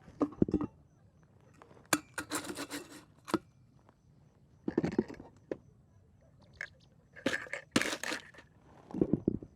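Camp gear being handled: irregular knocks, crunches and rustling scrapes in short clusters, about five times, with quiet gaps between.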